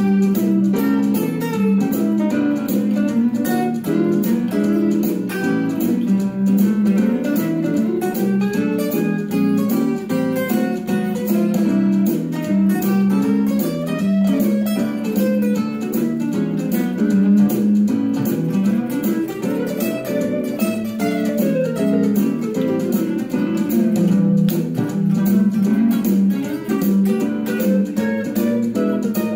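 Country and western swing instrumental: a Telecaster electric guitar picks a fast lead line over bass, drums and piano, with a steady beat.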